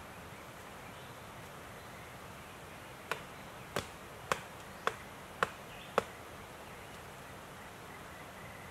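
Six sharp knocks in an even rhythm, about two a second, each a little louder than the last, over a steady faint hiss.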